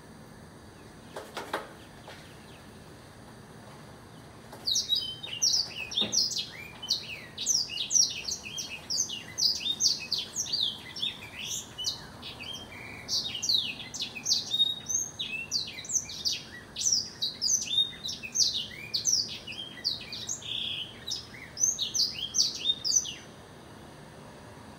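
Blackthroat (black-throated canary) singing a long unbroken song of rapid, high twittering and trilling notes. The song starts about five seconds in and stops near the end.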